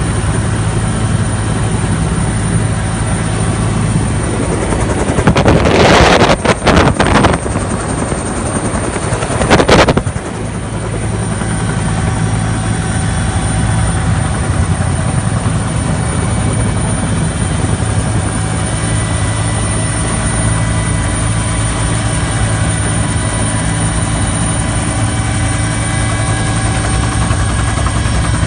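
Helicopter engine and rotor running in a steady drone with a steady whine, heard inside the cockpit. Two loud bursts of noise cut in, one lasting about two seconds around six seconds in and a short one near ten seconds.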